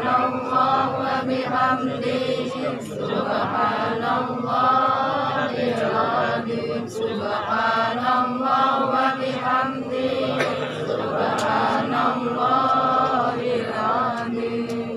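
A group of voices chanting Islamic prayers together in unison, in long held phrases broken by short pauses every few seconds.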